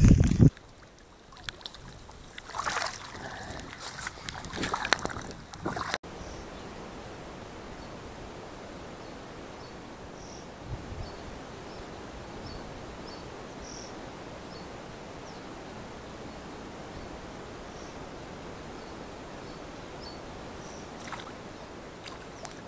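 Rustling and scattered knocks for the first few seconds, then after a sudden cut a steady, even hiss of rain falling on still water, with faint high chirps now and then.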